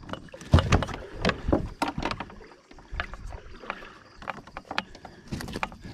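Irregular knocks, thumps and rustling of a rubber-mesh landing net and its frame against a plastic kayak while a bass is gripped in the net by hand. The heaviest thumps come about half a second in and again near the end.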